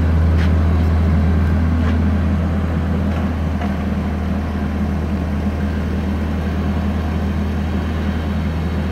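Jungheinrich forklift running with a steady deep hum as its mast lifts the empty forks to full height.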